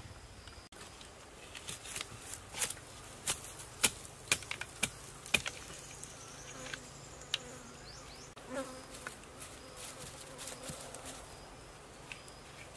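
An insect buzzing close by with a steady hum that wavers in pitch, over a series of sharp clicks and knocks as bamboo poles are handled and fitted into a frame, most of them in the first half.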